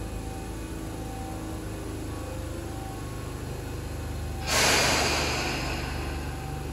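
Tobu 20400 series electric train standing at the platform with a steady low hum, then a sudden loud blast of compressed air hissing out about four and a half seconds in, fading over about two seconds.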